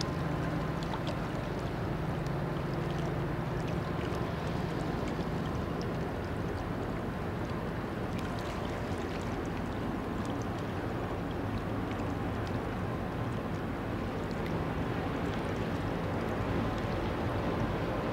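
Steady low rumble of distant rail and river traffic, with a low engine hum that fades over the first few seconds.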